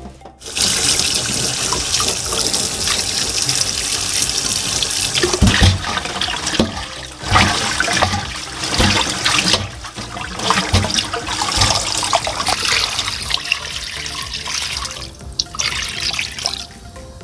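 Tap water running and splashing over parboiled pork ribs as they are rinsed in a stainless-steel perforated colander, with low thuds from the ribs being handled.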